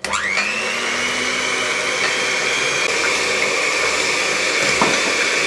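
Electric hand mixer switched on, its motor whine rising as it spins up, then running steadily as the beaters whisk whole eggs and sugar in a stainless steel bowl.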